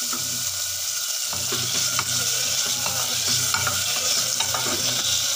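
Chopped tomato frying and sizzling in hot oil in a pressure cooker pot. A wooden spatula stirs it, with scrapes and taps against the pot starting about a second in.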